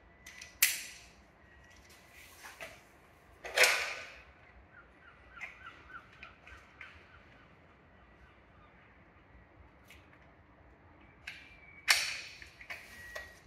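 Rope and metal rigging hardware being handled as rope is fed through pulleys and into a progress capture device: three short, sharp rasping clacks, about a second in, about three and a half seconds in and near the end, with a quick run of light ticks in between.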